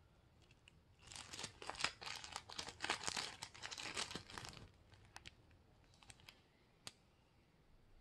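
Packaging crinkling and rustling as a small accessory is unwrapped by hand, starting about a second in and lasting three to four seconds. A few faint clicks and one sharp tick follow.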